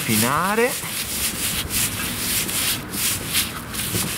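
Gloved hands rubbing dry spice rub into a raw flank steak on a plastic cutting board: quick, repeated scrubbing strokes of glove over meat.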